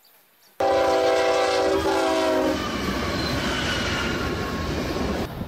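Freight locomotive air horn sounding one blast of about two seconds, several tones at once, cutting in suddenly. The rumble of the moving train continues under it and after it.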